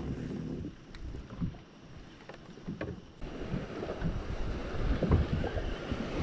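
Wind rumbling on the microphone and light water sounds around a kayak, with a few faint clicks. The wind gets louder after about three seconds.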